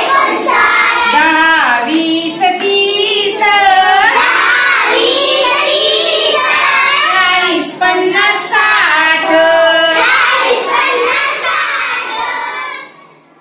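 A first-grade girl singing a Marathi number-counting song, chanting the numbers of the 1-to-60 table row by row in a sing-song tune; the singing stops shortly before the end.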